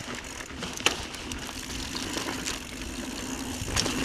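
Mountain bike rolling over a dirt trail: a steady rolling rumble with scattered sharp clicks and rattles.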